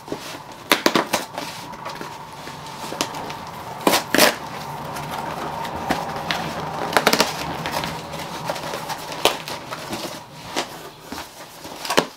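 Cardboard shipping box being cut and pulled open by hand: packing tape and cardboard flaps scraping and crackling, with sharp crackles every few seconds.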